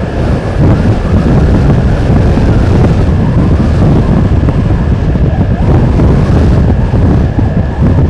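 Strong wind buffeting the microphone: a loud, gusting low rumble. A thin, steady high tone runs underneath.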